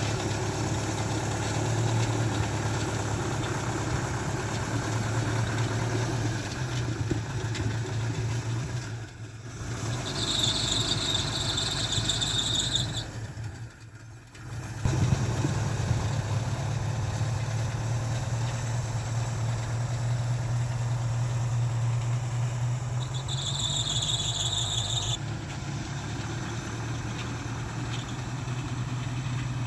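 An engine running steadily, dropping off briefly twice before picking up again, with a high-pitched squeal for a couple of seconds at a time, twice.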